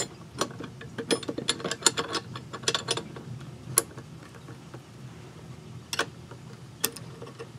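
Ratcheting box-end wrench clicking as it turns the hex nut that holds the new leather gasket and washers on a floor-pump piston. A quick run of clicks in the first three seconds, then a few single clicks a second or more apart.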